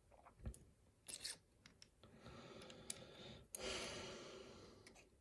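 Faint handling of small metal lock parts during disassembly of a lock cylinder: a few light clicks of pins and tools, then a soft scraping rustle about three and a half seconds in.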